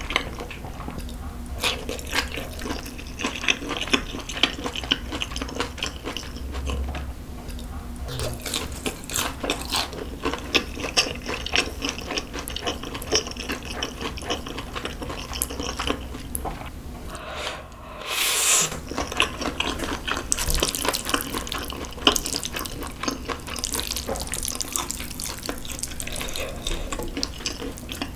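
Close-miked eating: a person chewing spicy noodles and fried chicken, with wet smacking and dense crackly mouth clicks, and one brief louder rushing sound about two-thirds of the way through.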